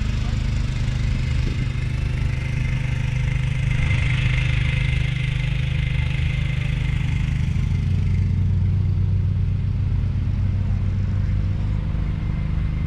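An engine idling steadily, with a faint higher whine between about two and eight seconds in.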